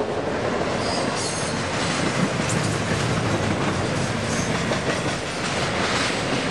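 Double-stack intermodal freight train's cars rolling past, a steady noise of steel wheels running on the rails.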